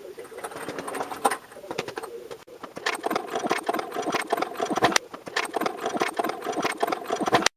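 Irregular mechanical clatter with many sharp clicks.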